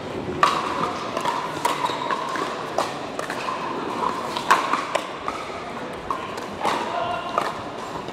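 Pickleball rally: a plastic ball popping off hard paddles in a quick string of a dozen or so hits, about one every half second.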